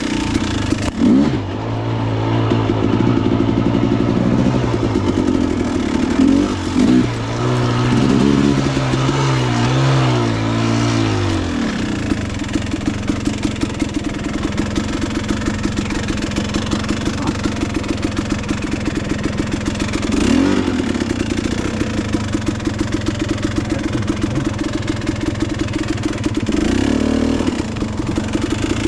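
Dirt bike engine revving up and down in short bursts for the first twelve seconds or so, then running at low revs with an even putter, blipped briefly twice near the end.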